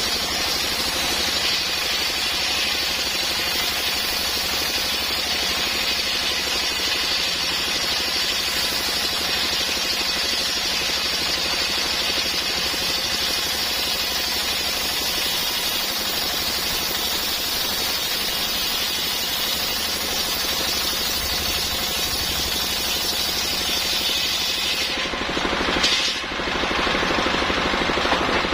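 Sharp circular saw blade ripping lengthwise through a coconut-palm (glugu) trunk, a loud, steady cutting noise. About 25 s in the high hiss falls away with a brief spike, and the saw runs on with a duller sound.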